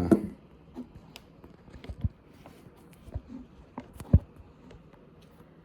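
Scattered light knocks and taps of objects being handled, with sharper knocks about two and about four seconds in.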